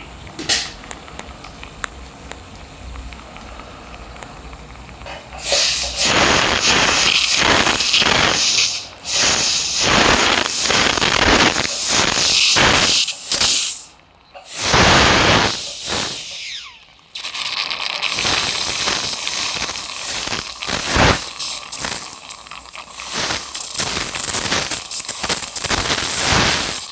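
Loud spraying hiss with crackle, starting about five seconds in and cutting out briefly several times.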